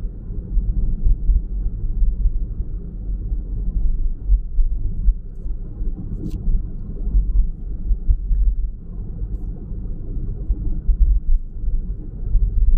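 Car driving along a road, heard from inside the cabin: a steady low rumble of engine and tyre noise that rises and falls slightly in level.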